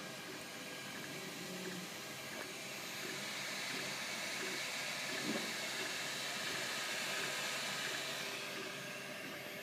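MakerBot Replicator 3D printer running: a steady whirring hiss from its extruder cooling fans, a little louder in the middle.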